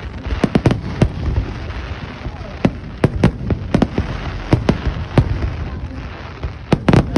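Fireworks going off in an irregular series of sharp bangs and pops, about two or three a second.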